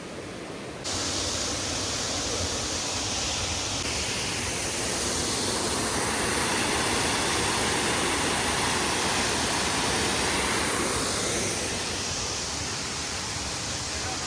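Waterfall: a steady rush of falling water that starts abruptly about a second in and swells in the middle.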